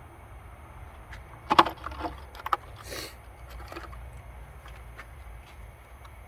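Tools and parts being handled in hand work on a car battery terminal: a cluster of sharp clicks and knocks about one and a half seconds in, a short scraping hiss about three seconds in, then a few fainter clicks, over a steady low rumble.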